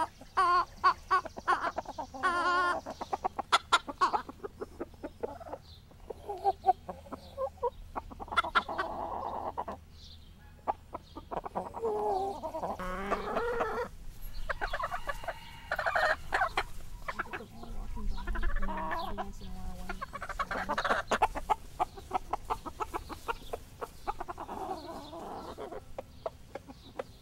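Flock of chickens, hens and roosters, clucking and calling in many short pitched calls, some coming in quick runs.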